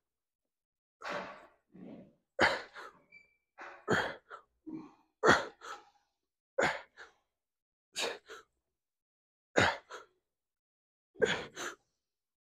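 A weightlifter's hard, sharp breaths, one after another, straining through a set of incline dumbbell presses with 80-pound dumbbells. There are about nine short bursts, often in quick pairs, roughly one every one and a half seconds, in time with the reps.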